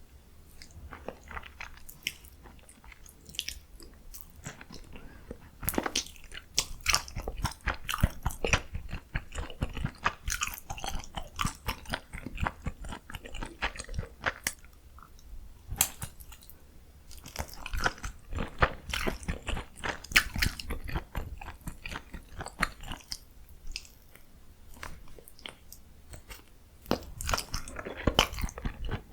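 Close-miked eating sounds: a person biting and chewing food, in bouts of quick sharp clicks and crunches with quieter pauses between.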